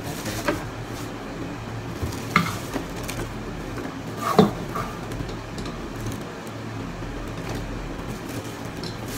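Clicks and light knocks of a metal-jointed microphone arm stand and shock mount being handled and fitted together, the loudest knock about four seconds in, over a steady low hum.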